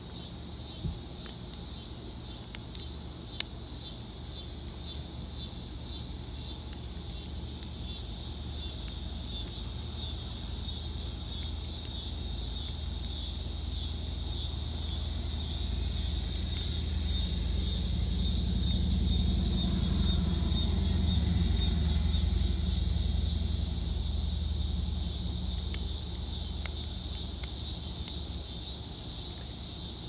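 Steady outdoor insect chorus, high and fast-pulsing, over faint scattered ticks of a lock pick working the pins of a Paclock camlock cylinder. A low rumble swells up about halfway through and fades again.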